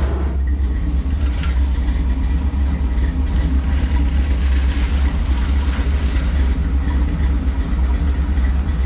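1965 Chevy Nova's 350 small-block V8 idling steadily, its exhaust running through fender-exit headers, with a deep, even rumble.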